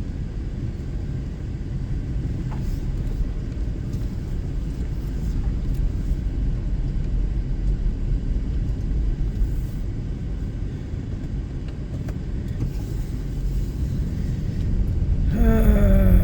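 Steady low rumble of a car on the move, heard from inside. About fifteen seconds in, a brief falling tone joins it and the rumble grows louder.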